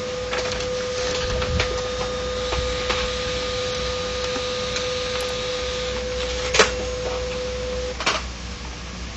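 HP LaserJet 1010 laser printer running through a print job: a steady mechanical hum with scattered clicks from the paper path, a sharp click about two-thirds in, and the motor stopping near the end. It runs without the rough grinding noise that was its fault, which the repair has cured.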